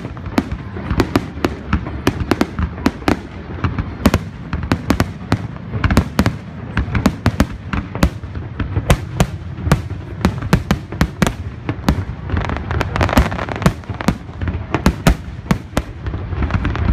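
Fireworks display: aerial shells bursting in rapid, irregular succession, sharp bangs several a second over a continuous low rumble.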